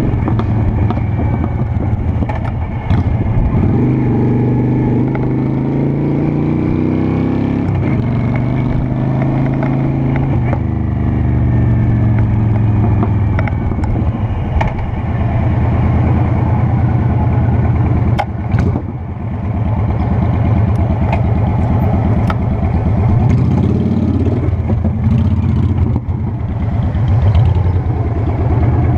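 Honda Shadow Spirit 750 V-twin engine running under way, its pitch rising as it pulls and dropping at gear changes, with a few short clicks.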